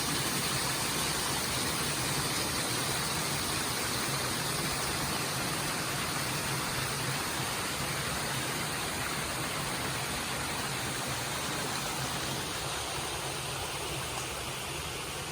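Mountain valley stream flowing: a steady, even wash of water noise, a little fainter near the end.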